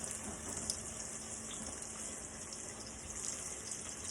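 Breaded chicken breasts sizzling steadily in shallow hot soybean oil, with faint scattered crackles; the oil is running a little hot.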